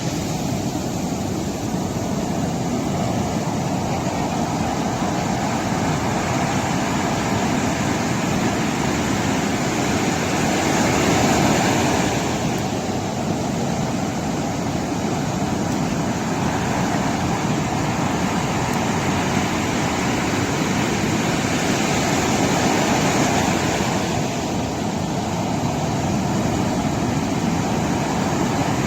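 Sea waves washing onto the shore with wind noise, a continuous rushing that swells louder twice, about a third and three quarters of the way through.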